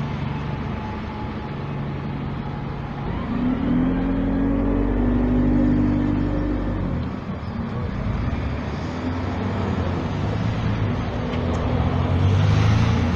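Motor vehicle engine running and passing close by, its pitch rising for a few seconds, over a steady low rumble of wind on the microphone.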